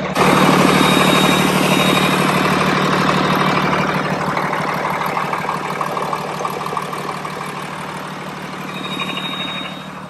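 Freightliner truck's diesel engine idling, heard up close in the engine compartment with a fast, even pulsing and a faint steady whine. Loudest at first, it fades slowly as the listener draws away.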